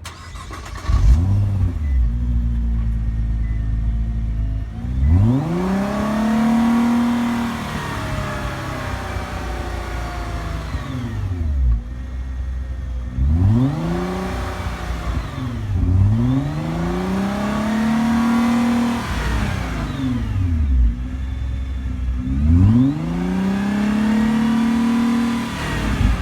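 2015 Nissan GT-R's 3.8-litre twin-turbo V6 starting with a loud burst about a second in, settling to idle, then revved about four times, each rev climbing, held high for a few seconds and dropping back to idle.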